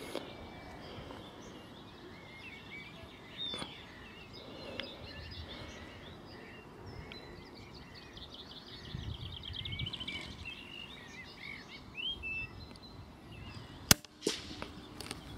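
Small birds chirping and trilling, then about fourteen seconds in a single sharp crack from a suppressed CZ 455 bolt-action .22 LR rifle firing subsonic rounds. A duller knock follows a moment later.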